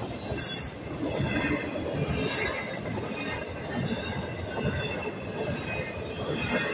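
Union Pacific intermodal freight train's container and trailer cars rolling past at speed: steady noise of steel wheels on the rails.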